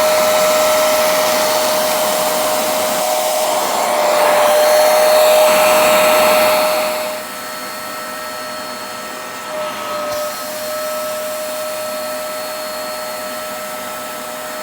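Hoover Spotless portable carpet and upholstery cleaner running, its suction motor giving a steady whine over a rushing of air. About seven seconds in the rushing drops and the machine runs on more quietly.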